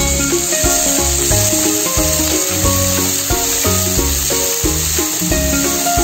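Background music with a melody over a steady bass beat. Beneath it, sliced onions sizzle in hot oil as they are stirred in a pan.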